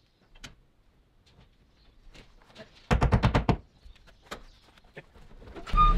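Light scattered taps and clicks of hand work against a plywood wall, with a loud rapid rattle of about eight quick knocks halfway through. Background music comes in near the end.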